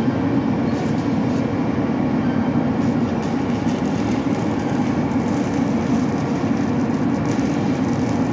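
A steady, loud machine drone with no breaks.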